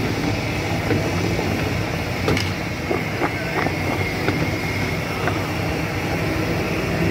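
Steady background din with a few light knocks in the middle, as floured potato sticks are tossed by hand in a plastic bowl.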